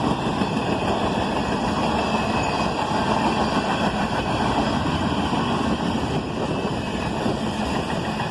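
Southbound manifest freight train passing close by, its lead GE ES44AH and ES40DC diesel locomotives running with a steady rumble that blends with the rolling of the cars on the rails.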